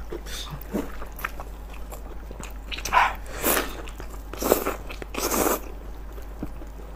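Close-up eating sounds: wet biting, sucking and chewing of sauce-soaked food, with several louder slurps from about three seconds in.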